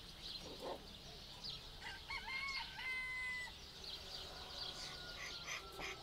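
A rooster crowing once, about two seconds in, the call lasting about a second and a half, with small birds chirping faintly.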